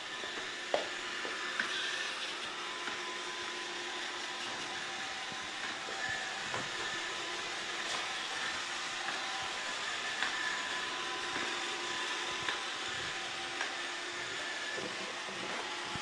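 iRobot Roomba 690 robot vacuum running as it cleans: a steady whir from its vacuum motor and brushes, with a faint constant hum and occasional small clicks.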